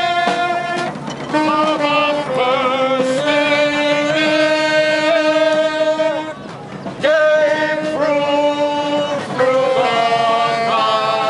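Live street music: a slow melody of long held notes, some wavering, with a short break about six and a half seconds in.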